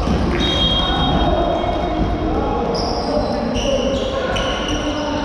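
Indoor basketball play on a wooden gym floor: a basketball bouncing, several short high sneaker squeaks, and players' voices calling out, all echoing in the large hall.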